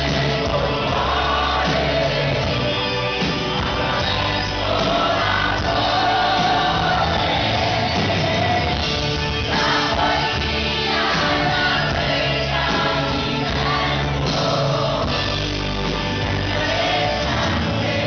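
Live pop-rock band playing loudly, with drums, electric guitar and keyboards under a male lead singer and a female backing singer singing together, heard from the audience in the hall.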